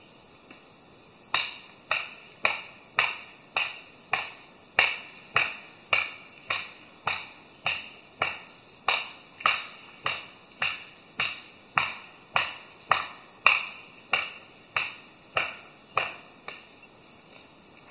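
Steady, evenly spaced chopping strikes on a maple round, about two a second, each with a short ring, as the bark is knocked off by hand with an edged tool. The strikes start about a second in and stop shortly before the end.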